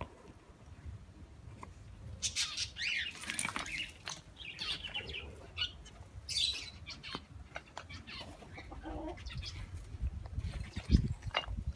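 Birds in a poultry aviary calling: scattered short, high chirps, then a few lower calls. A low thump near the end.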